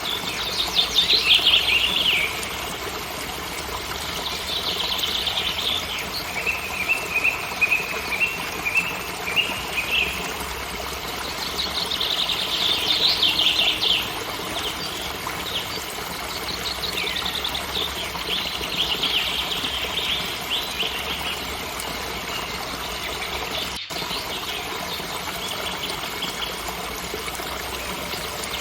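Steady rush of a forest waterfall with songbirds singing over it in several separate phrases, one of them a run of quick repeated notes. The sound cuts out for an instant about two thirds of the way through.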